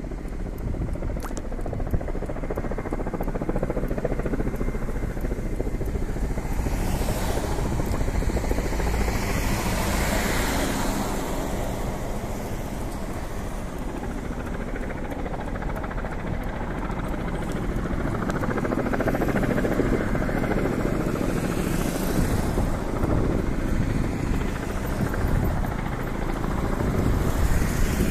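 Firefighting helicopter flying overhead, its rotor and engine noise mixed with road traffic, swelling and fading several times.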